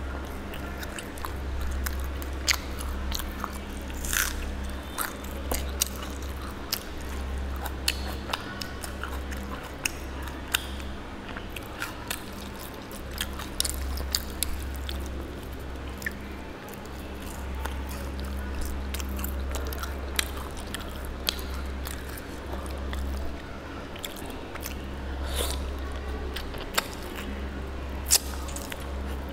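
Close-miked eating of mutton curry by hand: chewing and biting, with many short sharp mouth clicks scattered throughout, over a steady low hum.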